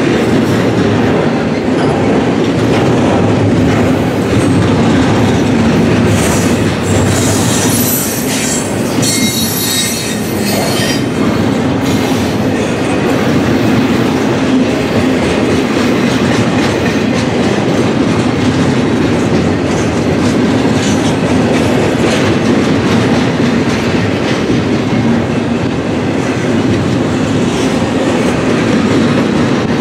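Freight train rolling past close by, its wheels clattering steadily over the rail. From about 7 to 11 seconds in, a high wheel squeal rises over the rumble.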